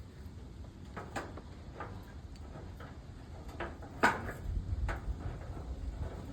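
A few separate knocks and clunks as a refilled steel propane tank is handled and set into a gas grill's tank holder. The loudest clunk comes about four seconds in, with a low rumble just after it.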